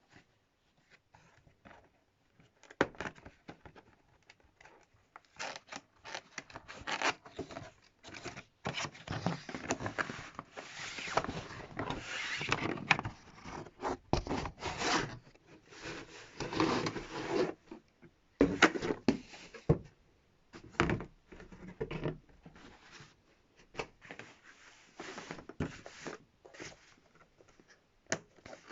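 Cardboard box and plastic packaging being handled and opened: irregular rustling, scraping and tearing, with a few sharp clicks and knocks.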